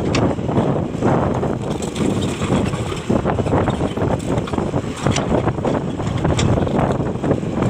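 Hitachi 200LC excavator's diesel engine running steadily, with a few sharp knocks over it.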